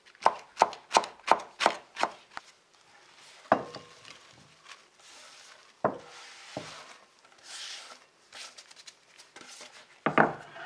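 Knife chopping napa cabbage on a wooden cutting board, about eight quick cuts in the first two seconds or so. Then come a few single knocks and a soft rustle as the shredded cabbage and radicchio go from the board into a glass bowl, with a louder knock near the end.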